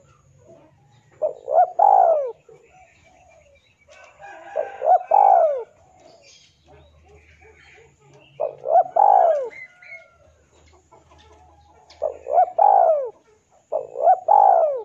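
Male spotted dove cooing its territorial call, the call a male gives to answer a rival: five phrases of two or three short, arching coos each, about every three seconds.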